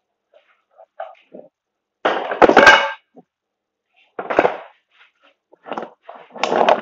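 Scrap metal parts being handled and tossed about on a workbench, clattering and knocking in a few separate bursts. The loudest burst comes about two seconds in.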